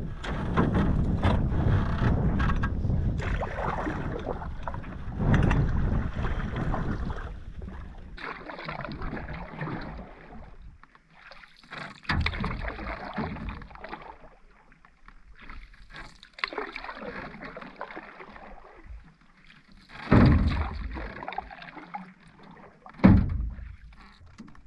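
Canoe paddle strokes in lake water: a splash and swirl with each pull, every three to four seconds, the last ones the sharpest. A louder, steady rush fills the first several seconds.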